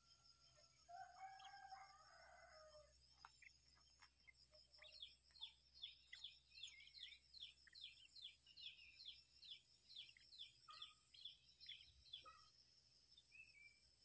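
Faint outdoor sounds. A rooster crows once, lasting about two seconds, near the start. From about five seconds in, a bird gives a run of quick descending chirps, about two a second, for some seven seconds. A steady high insect buzz runs underneath.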